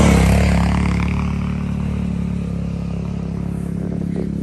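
ATV engine passing close by and then fading as it moves off, its steady running note dropping to a lower, even level after about two seconds.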